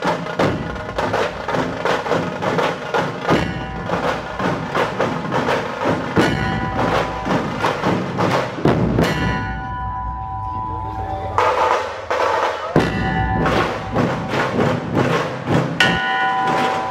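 Dhol drum ensemble playing a fast, dense beat, the drums struck with sticks. About nine seconds in, the drumming stops for about two seconds while a large hanging metal bell keeps ringing, then the drums come back in. The bell rings again near the end.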